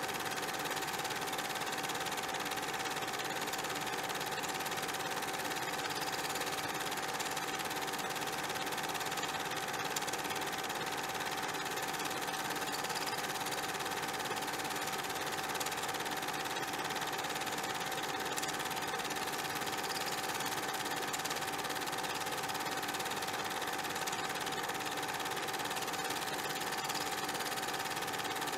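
A small machine running steadily: an even whirring clatter over a constant hum.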